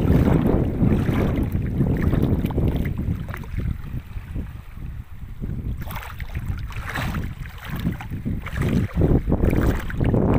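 Sea wind buffeting the microphone with waves washing at the shore; the heavy rumble eases about three seconds in, leaving softer splashing and crackles.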